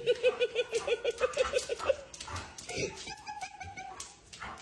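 Young German Shepherd giving a fast run of short, whining yelps, about seven a second, for the first two seconds, then softer whines while it is wrestled.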